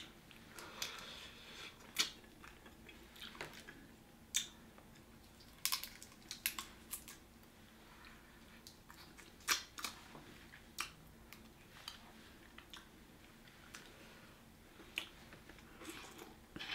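Snow crab legs being eaten: irregular sharp cracks and clicks of shell between fingers and teeth, with chewing of the meat.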